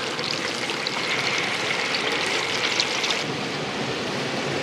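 Hot oil sizzling and crackling in a deep fryer, a dense hiss dotted with small pops that eases a little about three seconds in.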